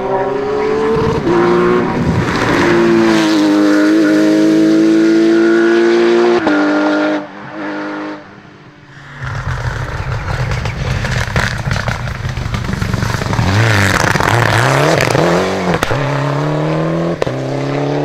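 A Porsche 911 GT3 rally car's flat-six accelerating hard, climbing in pitch with two upshifts, then fading as it drives away. After that a Mitsubishi Lancer Evo X rally car's turbocharged four-cylinder is heard, its revs rising and falling through a corner before climbing again near the end.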